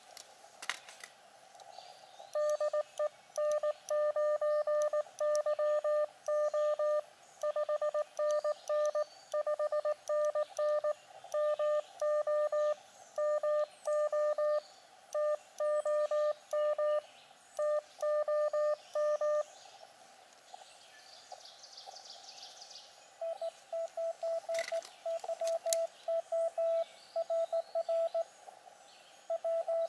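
Morse code (CW) tones from a portable HF transceiver (Elecraft KX2). First comes the operator's own keyed sidetone, a steady run of dits and dahs for about 17 seconds sending his exchange: callsign, a 5NN signal report, his state and his name. After a pause of a few seconds with birds chirping, a slightly higher-pitched, thinner Morse reply from the other station comes in over the receiver, asking for his number.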